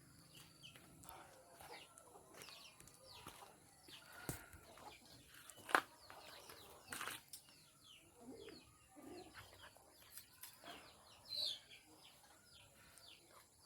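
Chickens calling with many short, falling peeps, and a couple of sharp knocks about four and six seconds in.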